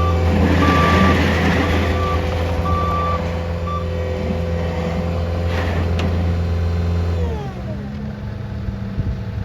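CAT 299D2 XHP skid steer's diesel engine running steadily at high revs, with its backup alarm giving short beeps through the first few seconds. About seven seconds in, the engine throttles down and its pitch falls.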